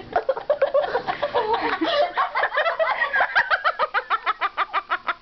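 Girls laughing hysterically: a stream of short, breathy laugh pulses that settles into a fast, even run of about seven a second in the second half.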